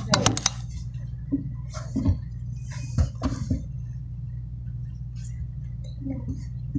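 Scattered light knocks and clinks of small objects being handled at a desk, close to the phone's microphone, over a steady low hum of room noise.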